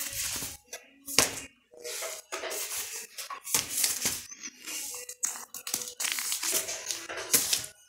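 Clear plastic record sleeves and cardboard LP jackets rustling and crinkling as a stack of vinyl records is flipped through by hand, in irregular bursts with short pauses between records.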